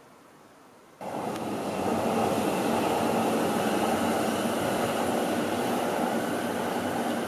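Electric commuter train running past on the tracks below: a steady rumble of wheels on rails with a faint steady hum, starting abruptly about a second in.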